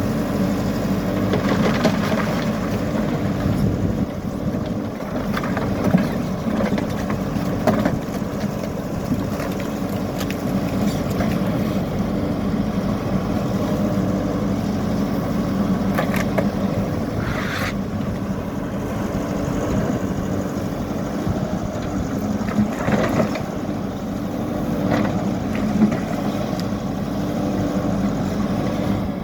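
Hidromek backhoe loader's diesel engine running steadily, with a few sharp knocks and scrapes of the machine working rubble.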